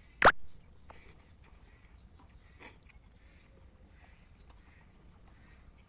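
A sharp click near the start, then a small bird chirping over and over in high, thin, wavering notes.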